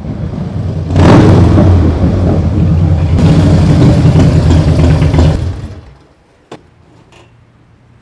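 A loud engine running, jumping up in level about a second in and holding steady, then dying away about six seconds in. A single sharp click follows shortly after.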